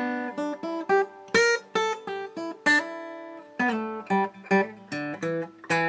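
Outro music: an acoustic guitar picking a melody, a quick run of plucked notes, each starting sharply and fading.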